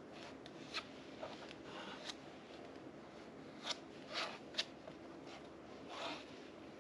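Palette knife spreading and scraping thick modelling paste on a canvas: a string of short, irregular scrapes and smears over a faint steady room hum.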